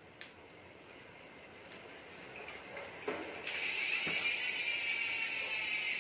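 Sagmit Evo 3 rear hub's freehub clicking as the rear wheel is spun by hand. A few faint clicks come first, then about three and a half seconds in it settles into a loud, steady, high-pitched ratcheting buzz of the pawls as the wheel freewheels.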